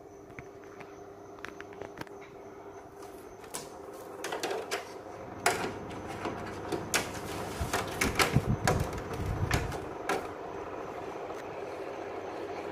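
Sharp AH-AP9HHY split air conditioner indoor unit running: a steady hum with fan noise that grows louder, with scattered clicks and a dense run of clicks and knocks in the middle.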